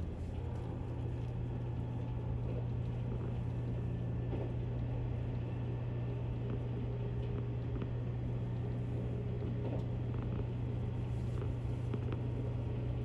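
JR Kyushu 783 series electric train running, heard from inside the carriage: a steady rumble with a constant low hum and a few faint clicks.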